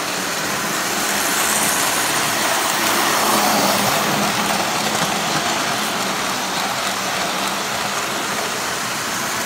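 Model train running on tubular metal track: a steady rumbling rattle of the wheels and motor, growing a little louder as the streamlined diesel locomotive and its cars pass close by about three to four seconds in.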